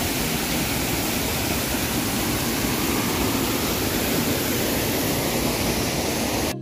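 Steady rush of falling water from a waterfall, an even noise with no let-up, cut off abruptly at the very end.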